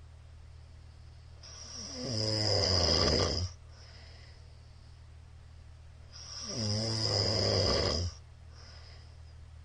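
A man snoring loudly: two long snores about four and a half seconds apart. Each builds up into a low buzz with a hiss, then stops abruptly, with quiet breathing between.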